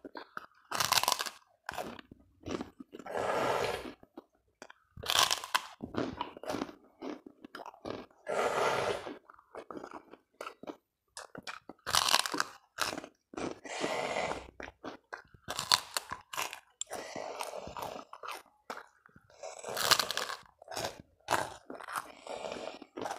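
Puffed kerupuk crackers being bitten and chewed: irregular sharp crisp crackles, with longer stretches of crunchy chewing between them.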